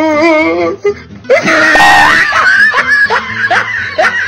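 Domestic cat yowling: a long meow that wavers up and down in pitch, then, from about a second and a half in, louder, higher screaming yowls that break into short rising cries.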